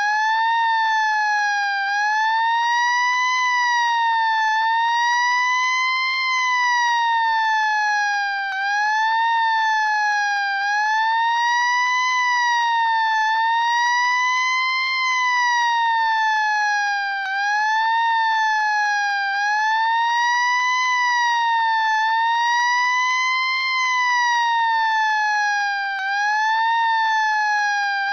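Fire truck siren wailing. Its pitch glides slowly up and falls back every two to three seconds, at an uneven pace, without a break.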